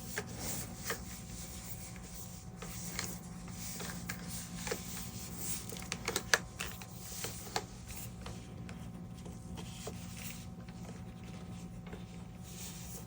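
Light handling noises from unboxing a ball-jointed doll body and its packaging: scattered soft clicks, taps and rubs, with a quick cluster of clicks about six seconds in, over a steady low hum.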